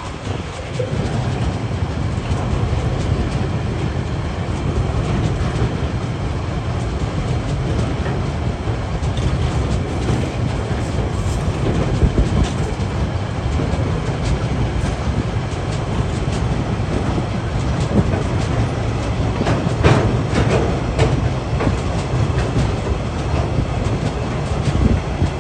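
TasRail freight train rolling steadily past, its wheels clacking over the rail joints over a continuous low rumble. A few sharper clanks come around the middle and again about three-quarters of the way through.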